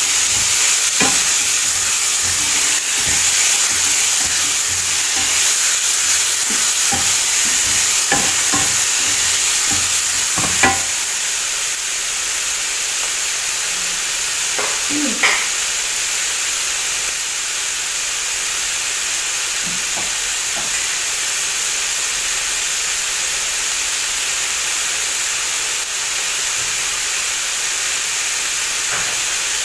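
Squash with onion, tomato and bell pepper sizzling in a stainless steel frying pan. A spatula scrapes and knocks against the pan for about the first ten seconds. After that the steady sizzle goes on alone, with one more knock about fifteen seconds in.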